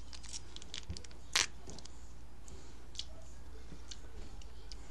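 A sauce packet being squeezed over a fried fish taco: scattered soft crinkles and clicks, thickest in the first second, with one louder crackle about a second and a half in, over a low steady hum.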